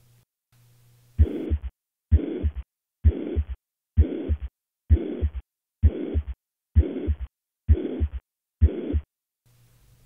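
Recorded heart sounds of mitral regurgitation: nine beats a little under a second apart. Each is a holosystolic murmur of even loudness that fills the whole gap between the first and second heart sounds, followed by a silent diastole.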